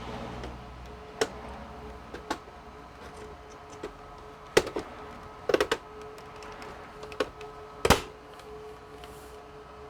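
Irregular clicks and knocks from hands working on the computer's hard parts, the loudest clusters near the middle and about eight seconds in, over a steady hum.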